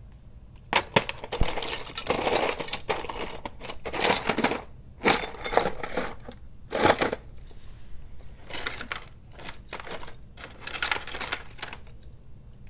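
Hand rummaging through a plastic drawer of loose model train parts: small plastic and metal pieces clattering and clicking against each other and the bin, with stretches of rustling.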